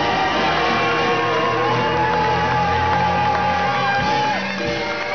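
Live horn band with saxophone, trombone and upright bass playing loud rhythm-and-blues. A long held note breaks off about four seconds in.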